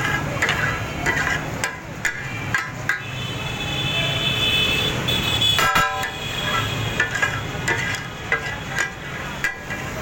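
Busy street traffic with vehicle horns honking, one held for about two seconds near the middle. Irregular sharp clacks and background voices run underneath.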